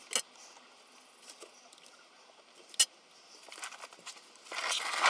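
Handling of a plastic gear oil bottle: a sharp click near the start and another about three seconds in, light rustling and ticks between, then louder handling noise near the end.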